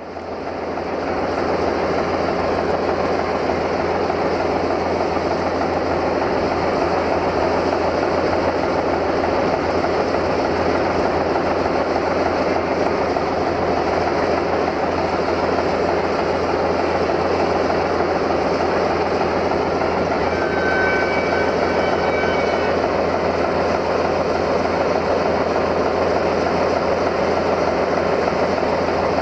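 Sulzer 12LDA28 diesel engine of a CFR class 060-DA locomotive hauling a freight train, running with a steady, loud rumble and a low hum. It fades in over the first second or two, and a couple of brief faint high tones appear about two-thirds of the way through.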